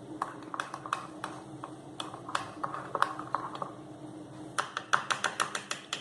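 A spoon stirring cake batter in a mug, clicking and tapping irregularly against the sides; the taps come faster near the end.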